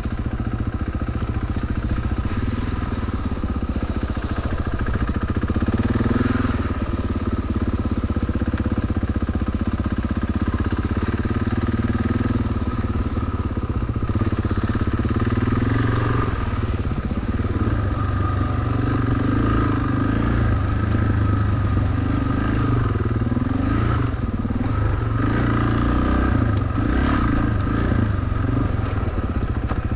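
Suzuki DR-Z400 dual-sport motorcycle's single-cylinder four-stroke engine running on a dirt trail, its note rising and falling as the throttle opens and closes, with a few clattering knocks.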